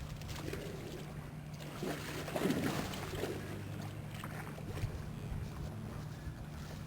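A steady low engine hum, with some wind noise, and a brief louder sound about two and a half seconds in.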